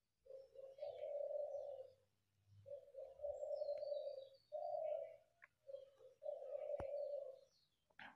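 A pigeon cooing over and over in low phrases about a second long with short gaps between them. Faint chirps of small birds sit higher up, and there are a couple of sharp clicks.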